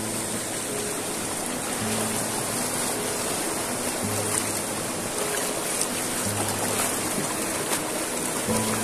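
Shallow river running fast over rocks, a steady rushing of water, with background music whose low bass note repeats about every two seconds.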